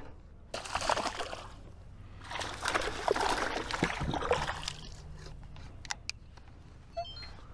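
Water sloshing and trickling against a kayak in two spells of a couple of seconds each.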